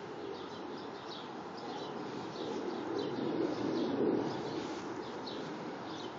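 A bird chirping, with short high calls repeating about every half second, over a steady low rumble of outdoor background noise that swells a little midway.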